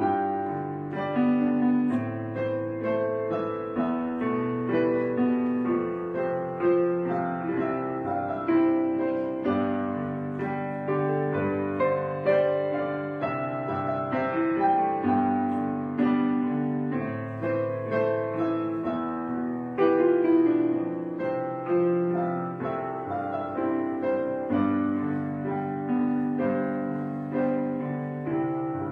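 Background piano music, a run of notes and held chords.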